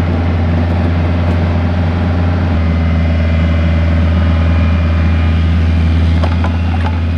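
Bobcat 430 mini excavator's diesel engine running steadily while the boom and bucket are worked, with a slight change in its low note about two and a half seconds in.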